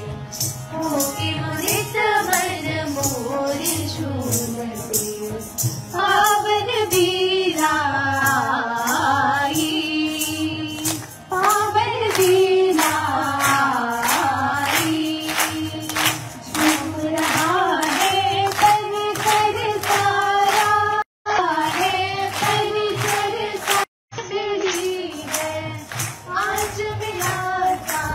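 Hindi song with female voices singing a melody over a steady percussion beat with a jingling, tambourine-like sound. The sound cuts out for a split second twice in the second half.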